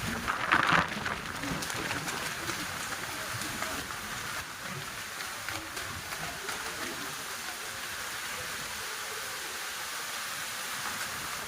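Heavy rain falling steadily in a storm, an even hiss of downpour, with a brief louder surge about half a second in.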